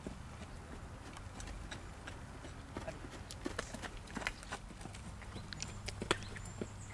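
Hoofbeats of a young grey horse trotting and cantering on a sand arena: irregular soft thuds and clicks, a few sharper strikes as it passes close.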